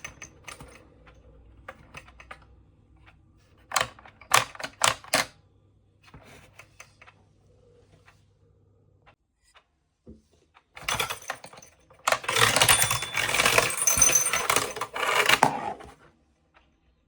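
Hard plastic mechanism and marbles of a marble-powered alarm clock clicking and rattling: a short run of sharp clicks about four seconds in, then a dense clatter lasting about four seconds near the end.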